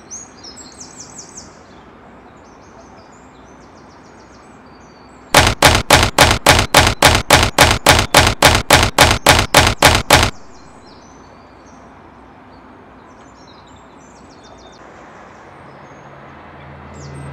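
Birds chirping over a steady outdoor background. About five seconds in comes a loud run of about twenty sharp, evenly spaced strokes, about four a second, lasting about five seconds. Near the end a low steady hum begins.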